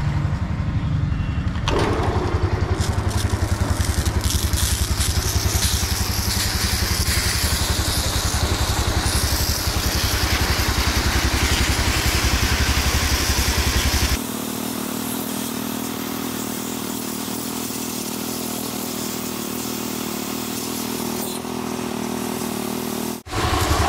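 A pressure-washer jet hisses against a Royal Enfield Himalayan's chain and rear wheel over the bike's engine idling with an even pulse. About halfway through, the low engine pulse drops away, leaving the spray hiss and a steadier hum.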